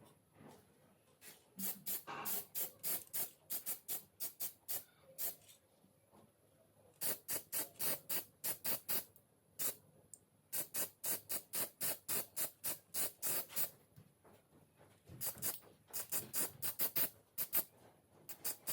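Rapid hand strokes scraping on the metal of a pistol part, in runs of about four strokes a second with short pauses between runs.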